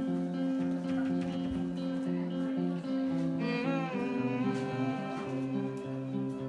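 Guitar played through a PA speaker, sustained strummed chords in an instrumental passage between sung lines, with a brief gliding note about halfway through.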